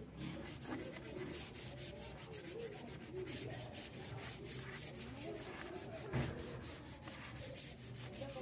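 Hand sanding a carved wooden table edge with a folded sandpaper pad: quick back-and-forth rubbing strokes, several a second, over stained wood.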